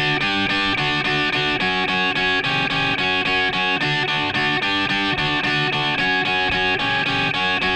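Intro music: a guitar piece of plucked notes in a steady, even rhythm.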